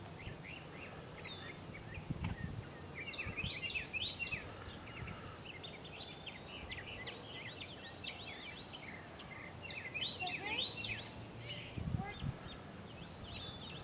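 Many birds chirping and twittering together in a busy, overlapping chorus of short calls, with two brief low rumbles, about two seconds in and again near the end.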